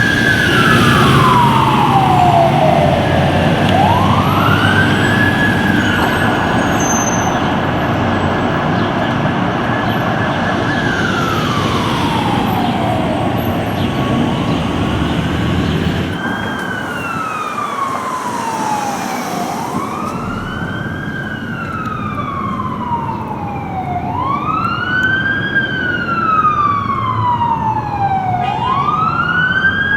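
Fire truck siren wailing: it climbs to a high tone, holds it for several seconds, then slides down, over a low engine and traffic rumble. About halfway through the wail turns quicker, rising and falling roughly every four seconds.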